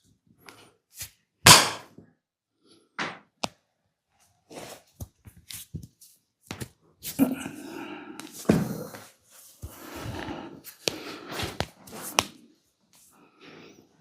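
Massage sounds of hands striking skin: a string of sharp, irregular slaps and smacks, the loudest about a second and a half in, with softer rubbing noise in between during the second half.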